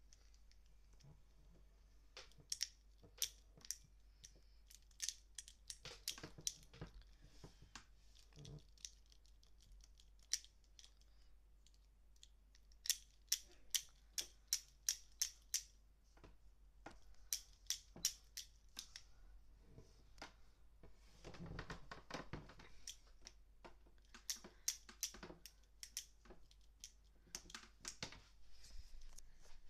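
Unicorn punching pen's mechanism clicking in runs of sharp clicks, about three a second, with pauses between the runs. A stretch of soft rustling comes about two-thirds of the way through.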